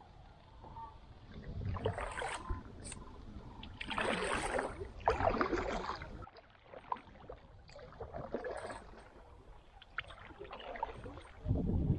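Kayak paddle strokes: the blade dipping and pulling through the water in a series of splashy swishes about every one to two seconds, with a few light clicks between them.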